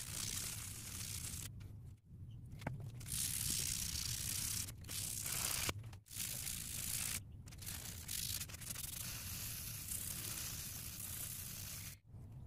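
Sandpaper rubbed by hand over the steel head of a sledgehammer, a steady dry rasping that stops briefly a few times.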